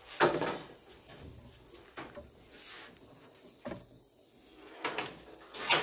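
A few separate sharp knocks and clicks of objects being handled, the loudest just after the start, with quieter ones spread through the rest.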